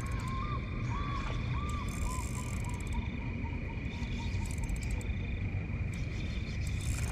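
Outdoor ambience: a steady low rumble under a constant high-pitched whine, with a string of short chirp-like calls in the first couple of seconds and a few brief bursts of high, hissy clicking.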